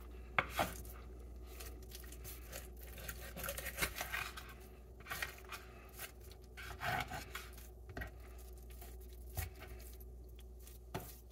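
Knife cutting raw chicken on a plastic cutting board: scattered short clicks, scrapes and tearing as the blade works through skin and the thigh joint, with gloved hands rubbing on the meat.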